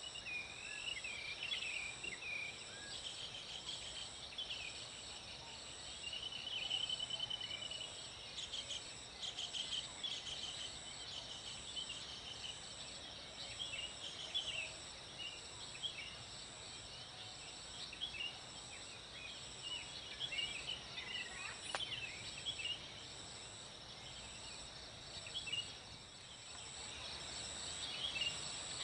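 Forest birds chirping and trilling in a dawn chorus, many short calls overlapping, over a steady high insect drone that pulses evenly.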